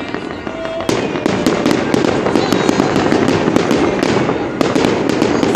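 Fireworks display: shells launching and bursting overhead, with dense crackling and repeated sharp bangs. The bangs get louder about a second in.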